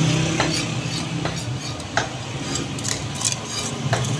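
Steel knife cutting through fish flesh and striking a wooden chopping block: several sharp clicks and scrapes a second or so apart, over a steady low hum.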